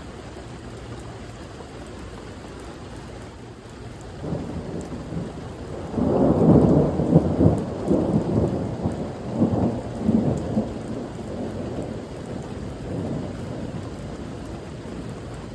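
Steady rain with a long roll of thunder that builds about four seconds in, rumbles loudest through the middle, and fades away near the end.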